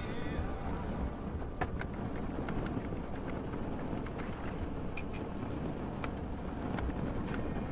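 Rain falling with scattered sharp drips and ticks over a steady low rumble.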